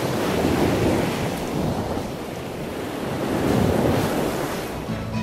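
A steady rushing noise like breaking surf, swelling about a second in, easing, and swelling again near the end.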